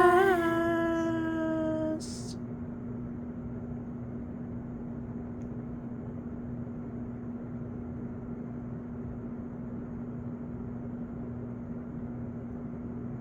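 The last note of the song is held, wavering slightly at first, then fades and cuts off about two seconds in. A steady low hum with faint hiss follows.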